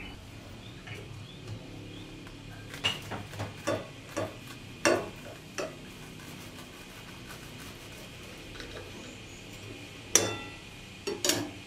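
A serrated knife slicing through a toasted grilled cheese sandwich on a ceramic plate, with scrapes and crunches of the crust and sharp clinks of blade and plate. The knocks come in a cluster in the first half and again, louder, near the end.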